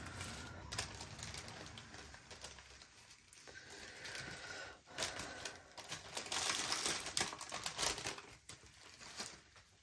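Small zip-top plastic bags of diamond-painting drills crinkling as they are handled and set down, with quick light clicks and a busier patch of rustling about six to eight seconds in.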